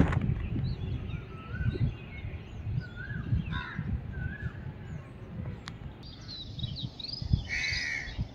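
Birds calling in the open: short chirping calls throughout and a crow cawing near the end, over a low rumble.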